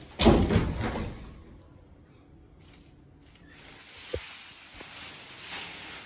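Unpacking noise from a refrigerator's cardboard box and plastic cover. A loud cluster of knocks and scrapes from handling the cardboard box comes in the first second, a single low thump follows about four seconds in, and plastic sheeting rustles in the last couple of seconds as it comes off the fridge.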